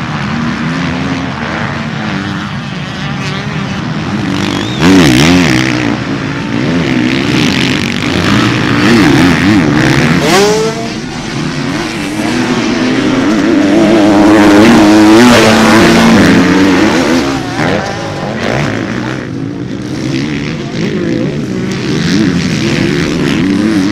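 Several motocross bikes racing on a dirt track, their engines revving up and down and overlapping as they corner, accelerate and jump. One engine revs up sharply about ten seconds in, and it is loudest around the middle as the bikes come past.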